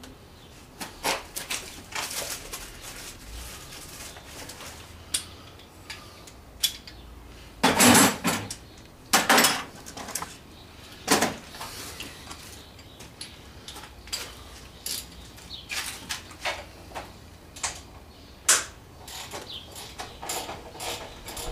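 Metal hand tools clinking and clattering as they are picked up, rummaged through and set down. The knocks come at irregular intervals, with a few louder clanks along the way.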